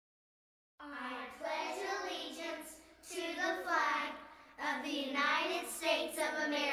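Children's voices reciting the Pledge of Allegiance together in short phrases, starting about a second in after complete silence.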